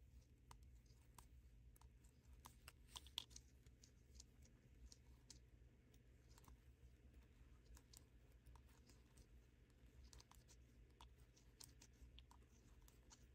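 Faint, irregular clicking of 7 mm circular knitting needles as stitches are knitted, over a low steady hum.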